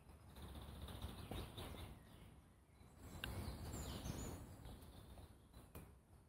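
Wind rustling through beech leaves, rising and falling in two gusts, with faint bird chirps about halfway through.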